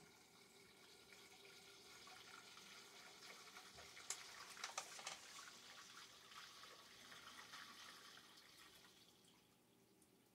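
Near silence: faint rustling and a few light clicks as hands handle and fit small parts on a chainsaw powerhead, fading away near the end.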